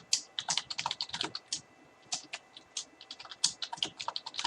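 Computer keyboard being typed on: quick, irregular runs of keystrokes with short pauses, as text is entered into installer fields.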